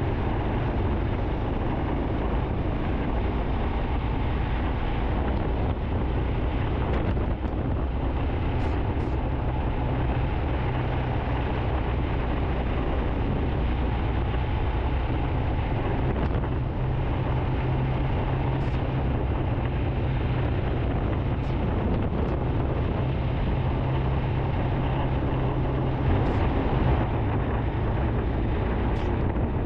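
Royal Enfield Himalayan's single-cylinder engine running at a steady cruising pace, its speed shifting slightly now and then, under a constant rush of wind and wet-road noise. A few faint ticks come through now and then.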